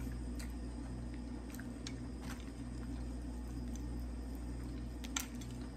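Faint chewing and lip smacks from eating fried chicken with the fingers, a few scattered wet clicks, over a steady low hum.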